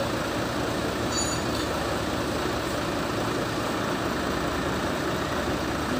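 Steady mechanical running noise of machinery, an even hum with a fast low pulsing, and a brief faint metallic clink about a second in.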